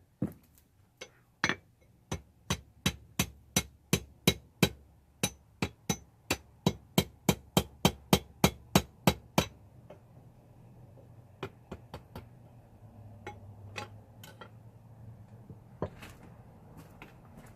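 Hand hammer striking hot rebar being forged into tongs: about two dozen ringing blows at roughly three a second, which stop about nine and a half seconds in. After that there is a low steady hum and a few light clinks.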